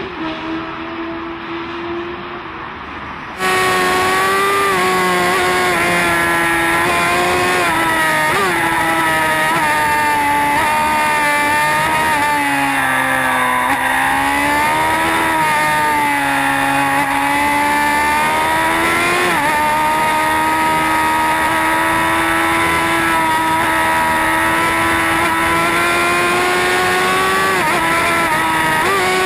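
Sport motorcycle engine running at high revs at speed, heard from onboard. Its pitch rises and falls with the throttle and sags twice near the middle. For the first few seconds it is quieter, then it jumps much louder.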